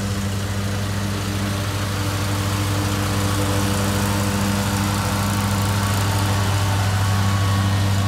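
Ferris stand-on zero-turn lawn mower running steadily while mowing, its engine drone growing louder toward the end as it drives close by.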